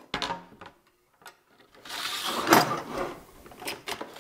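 Metal-on-metal handling of the aluminium Woodpeckers parallel-guide heads against an aluminium Festool guide rail. A sharp clank near the start, then, about two seconds in, a scraping slide as a head is fitted to the rail, ending in a click, followed by a few lighter clicks.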